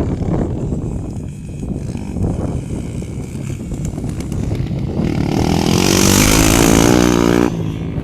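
Single-cylinder four-stroke trail motorcycle engine running, with wind on the microphone. About five seconds in, the engine gets much louder for a couple of seconds, then drops off abruptly.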